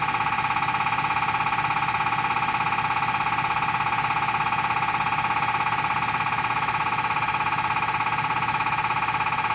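Diesel common rail fuel injector firing on a CRI100A test bench: a rapid, even ticking buzz that holds steady without change.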